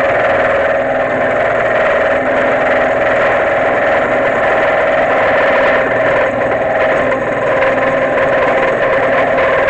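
A machine-tool motor running steadily under a cut, with a constant mid-pitched whine and no change in speed.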